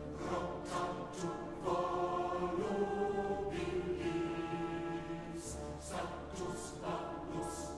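Background music with held chords.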